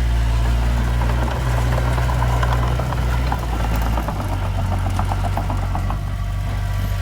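Heavy diesel engine of earthmoving equipment running steadily, its note shifting about four seconds in, with a light metallic clatter through the middle.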